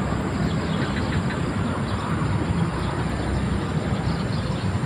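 Steady low rumble of traffic on the toll road overhead, running on without a break.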